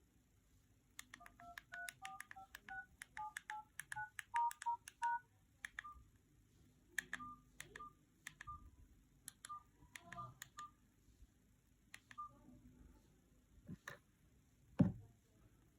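Keypad dialing tones from a Tecno T301 feature phone: a quick run of short two-note beeps as keys are pressed, then slower single presses. A dull thump comes near the end.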